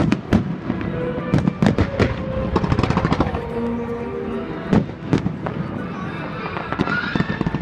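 Fireworks display: a run of sharp bangs and crackles from aerial shells bursting, several close together, with music playing underneath.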